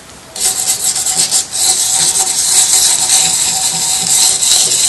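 A small piece of sandpaper rubbed by hand back and forth over cured epoxy resin, a scratchy rasping hiss. It comes in short strokes at first and becomes near-continuous from about a second and a half in. The resin is being scuffed so that acrylic paint and a further resin layer will grip it.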